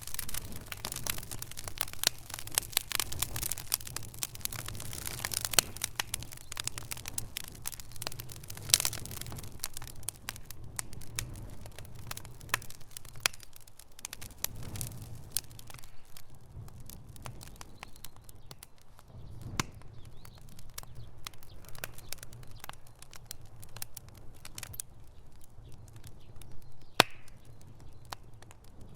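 Wood fire burning in a fireplace: a dense run of crackles and snaps over a low rumble of flame. The crackling thins out about a third of the way through, with one sharp pop near the end.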